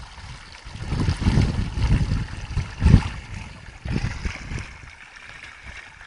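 Water running and trickling through a shallow mud channel, with irregular low rumbles and thumps about one to three seconds in and again around four seconds.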